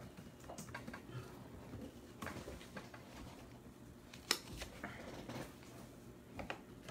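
Faint handling noises on a table: light rustles and small scattered clicks, with one sharper click about four seconds in.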